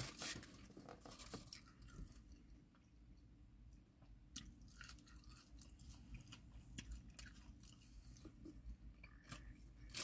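Faint chewing and mouth sounds from eating chicken wings, with scattered small clicks.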